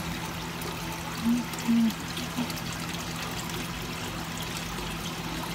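Aquarium water trickling and pouring steadily, with a low steady hum underneath and a couple of short low hums about a second and a half in.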